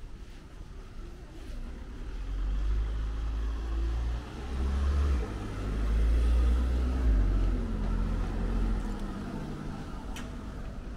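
A car driving past, its engine and tyre rumble swelling to loudest about halfway through and then fading away. A short click near the end.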